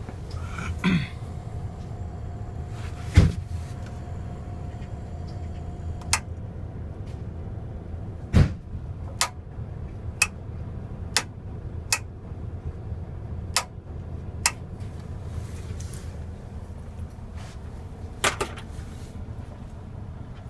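Steady low hum of a coach's idling engine heard from inside the cabin, with a few knocks and scattered sharp clicks, mostly in the middle.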